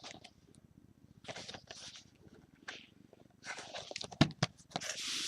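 A sealed box of football trading cards being handled: scattered rustles, crinkles and light knocks, busier and louder in the second half.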